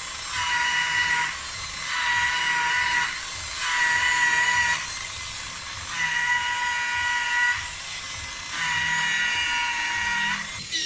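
Corded rotary polisher running with a foam pad against car paint. Its high whine comes and goes in about five spells of a second or so over a steady motor noise.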